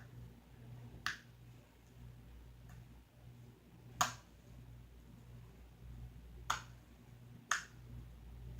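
Fingers poking a soft homemade slime, making sharp little clicking pops, about four clear ones a second or more apart, with fainter ones between, over a faint low hum.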